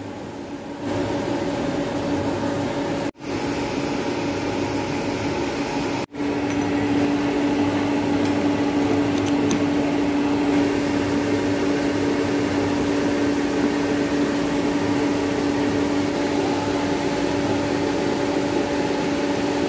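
Steady hum of a running electric motor with a constant tone, cut off for an instant twice, about three and six seconds in.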